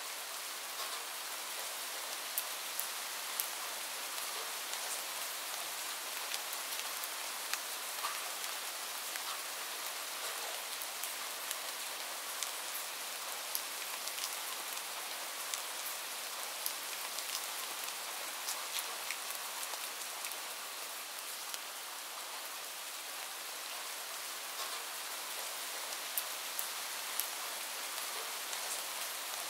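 Steady rain ambience: rain falling, with many short sharp drop ticks scattered through it.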